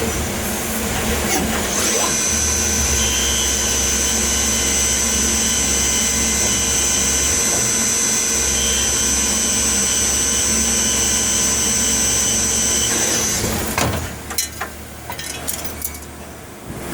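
Tsugami BO205 Swiss-type CNC lathe milling slots: a steady high-pitched whine over a machine hum starts about two seconds in and stops about thirteen seconds in. After that the machine goes quieter, with a few clicks and knocks.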